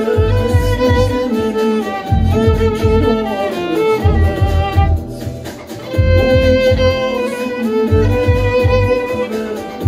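Violin playing a melody with vibrato, long held notes and quick stepwise runs, over a rhythmic low bass beat; the violin breaks off briefly about five seconds in, then picks up again.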